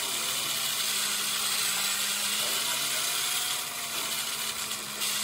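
Electric RC car's motor and gearing whirring as it drives, heard from on board, the pitch rising and falling with the throttle.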